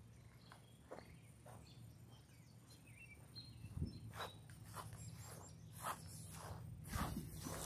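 Footsteps of someone walking over gravel and grass, about two steps a second, louder in the second half. Faint high chirps of birds or insects and a low steady hum sit underneath.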